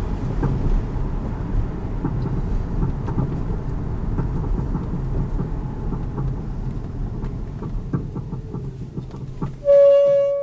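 Steady rumble of a moving car's road and wind noise heard from inside the cabin. Near the end the brakes give a short, loud, high-pitched squeal, which the driver puts down to moisture on brakes that a shop said look good.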